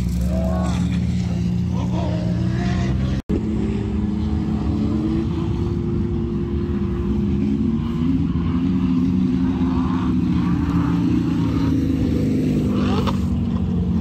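Off-road vehicle engines running and revving as buggies and 4x4s climb a steep sand dune, their pitch rising and falling, with voices of onlookers in the background. The sound cuts out for an instant about three seconds in.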